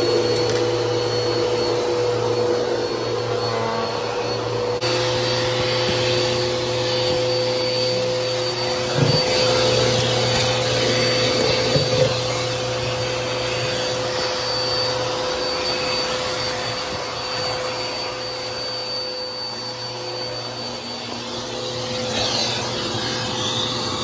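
Vacuum cleaner running steadily, its hose nozzle sucking along the floor, with a constant motor hum and a thin high whine. Two brief knocks near the middle as the nozzle bumps against something.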